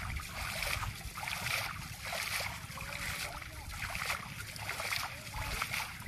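Water splashing again and again as a cord is hauled in hand over hand through shallow water, a splash about every second, over a steady low rumble.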